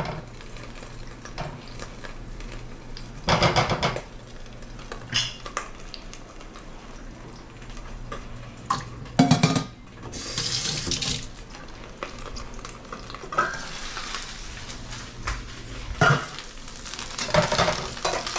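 Pots and pans clanking several times, with a faucet running into a stainless steel sink for about a second midway. Near the end comes the sizzle of dumplings frying in a pan.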